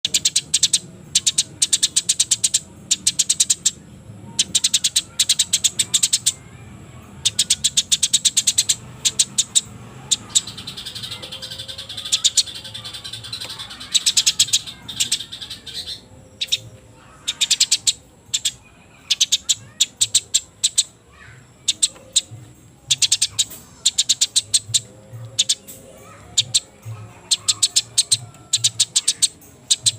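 Eurasian tree sparrows calling in rapid, loud bursts of sharp chirps, the agitated chattering of sparrows squabbling. The bursts come in clusters of about a second with short gaps, and a denser warbling from another bird runs through the middle.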